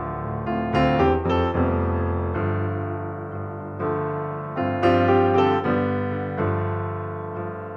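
Background piano music: soft chords and note runs, each struck group fading away before the next.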